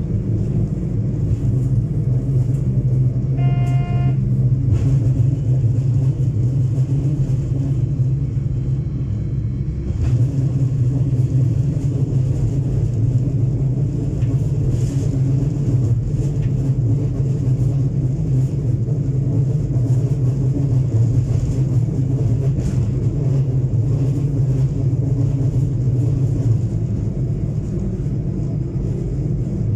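LVT/S diesel railbus running along the line, heard from inside: a steady low engine drone with rolling rumble from the wheels on the track. About three and a half seconds in, a short high horn toot sounds once.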